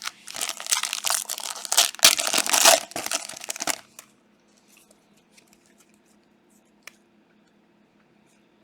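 A trading card pack's plastic wrapper being torn open and crinkled for about four seconds. After that comes a single light click.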